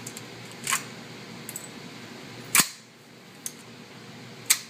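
An AR-15 rifle's action worked by hand to clear a jam: four sharp metallic clacks, the loudest a little past halfway.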